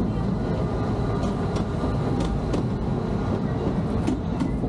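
Amusement-park railroad cars rolling along the track, heard from inside an open passenger coach: a steady low rumble with sharp clicks in pairs as the wheels cross rail joints, three times.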